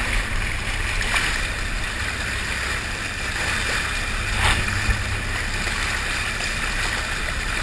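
Steady wash of water and wind noise on a game-fishing boat at sea, with a low rumble underneath. Two brief, sharper sounds come about a second in and again about halfway through.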